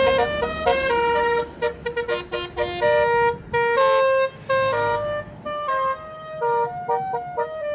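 Tour bus's Basuri telolet horn, a multi-note musical air horn, playing a tune: a quick run of short notes, then longer held notes, over the bus's engine running low underneath.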